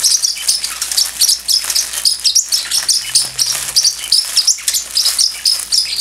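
Pacific parrotlet chirping rapidly, a continuous stream of short high chirps several a second, with a plastic bag crinkling underneath.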